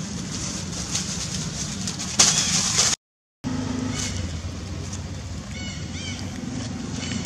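Several short, high, rising-and-falling animal calls in the second half, over a steady low background hum. A loud hissing burst comes a little after 2 s, then the sound cuts out for a moment.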